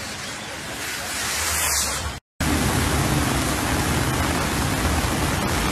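Steady rushing noise of heavy rain and floodwater, broken by a brief dropout about two seconds in.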